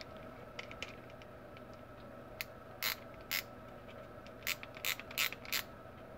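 Digital micrometer's ratchet stop clicking in short bursts as the spindle is closed onto a machined aluminum cube to measure it: a few faint clicks early, then about seven louder bursts in the second half. A faint steady hum runs underneath.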